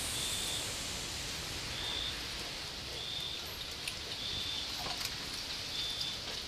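An insect chirping outdoors at night: short high-pitched chirps of about half a second each, repeating evenly about every second and a half over a steady background hiss, with a couple of faint ticks near the middle.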